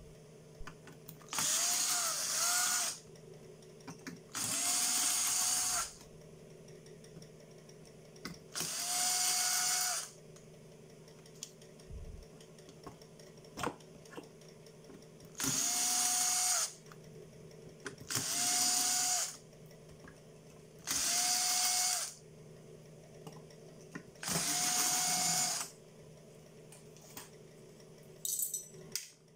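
Cordless drill-driver run in seven short bursts of a second or so each, backing out the screws that hold a TV's mainboard; the motor whine rises as each burst starts and drops as it stops. Small clicks and taps between the bursts.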